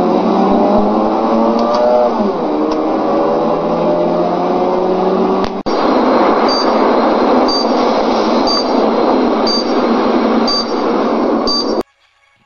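A car engine accelerating hard, its pitch climbing, dropping once at a gear change about two seconds in, then climbing again. About five and a half seconds in it cuts to the steady rushing roar of a rocket launch, with a short high electronic beep about once a second. The roar cuts off near the end.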